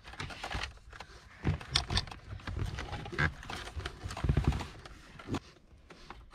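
Irregular clicks, taps and rattles of hard plastic as a car's removed rear center console is handled and a wiring-harness connector is worked loose, with a screwdriver prying at it. A couple of louder, duller knocks come about a second and a half in and again past four seconds.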